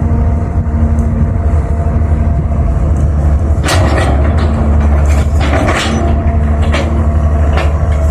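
Cat 320 hydraulic excavator's diesel engine running steadily under working load, with short bursts of hiss and clatter twice in the middle.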